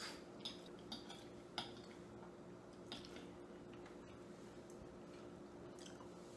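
Metal forks tapping and scraping faintly against plates of pasta: a handful of light clicks in the first three seconds and one more near the end, over a steady low hum.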